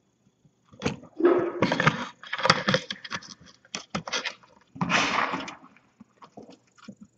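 A cat nosing and pawing at a webcam inside a metal cutlery-basket guard, close to the microphone: a run of knocks, scrapes and metallic rattles starting about a second in, dying down to scattered clicks after about five seconds.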